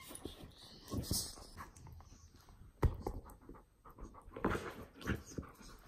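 Border collie panting and mouthing a rubber toy ball, with one sharp knock about three seconds in.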